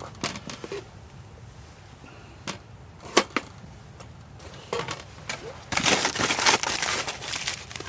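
Objects being handled: several separate knocks and clicks, then about two seconds of louder, dense rustling and rattling near the end.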